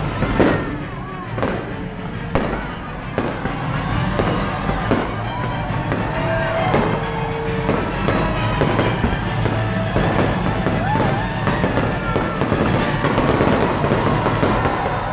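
Fireworks bursting and crackling in a rapid, continuing barrage, with music and crowd voices underneath.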